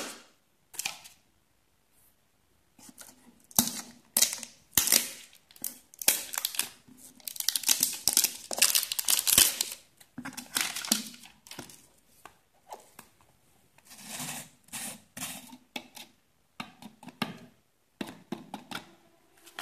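Tamper seal being torn off a plastic protein-powder tub and the screw lid worked open: irregular bursts of tearing and crinkling with a few sharp clicks, starting about three seconds in.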